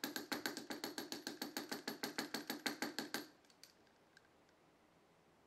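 Metal hair stacker rapped on the tying bench in a fast, even run of taps, about eight a second, to even up the tips of a clump of deer hair for a wing. The tapping stops a little after three seconds in.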